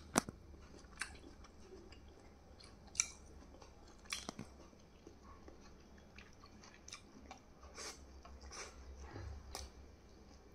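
A person chewing food close to the microphone, with short crunchy clicks every second or so.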